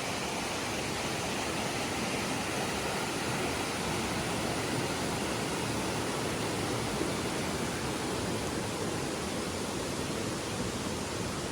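A river rushing steadily, an even, unbroken roar of flowing water.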